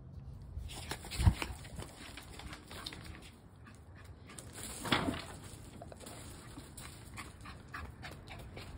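Scattered footsteps and scuffs on loose gravel and wet stone paving, with a loud thump about a second in and another around five seconds in.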